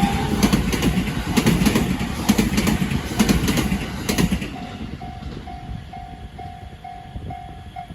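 A train passing over a level crossing, its wheels clattering rhythmically, fades out about four and a half seconds in. Under it the crossing's warning bell keeps ringing, and once the train has gone it is heard plainly as a steady ding repeating a little over twice a second.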